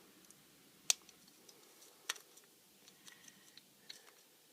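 Small sharp clicks and ticks of plastic and metal phone parts being handled, with the two loudest clicks about a second and two seconds in and fainter ticks scattered between.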